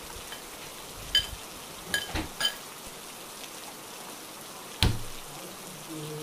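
Steady rain falling, with a few light metallic clinks of kitchen pans or utensils about one to two and a half seconds in and one sharp knock near five seconds in.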